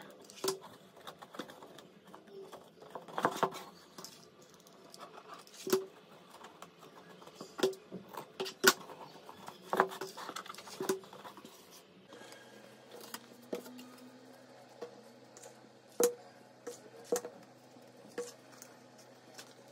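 Hands working with cardboard and fabric on a cutting mat: scattered light taps, knocks and rustles as the burlap-covered box and a cardboard panel are handled and pressed down.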